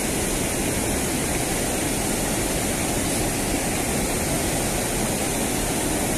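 Steady rushing of river water spilling over a low concrete weir, an even wash of sound with no separate splashes.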